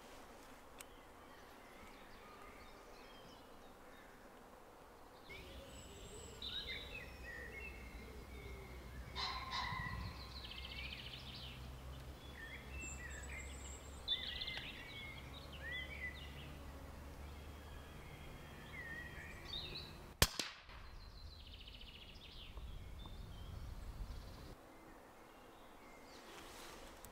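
Woodland songbirds chirping and calling, then about two-thirds of the way through a single sharp crack of an air rifle shot fired at a grey squirrel on the feeder.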